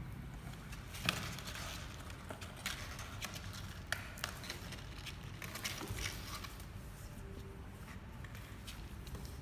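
Kittens' claws scratching and scrabbling on a cardboard box, a string of small irregular clicks and rustles over a low steady hum.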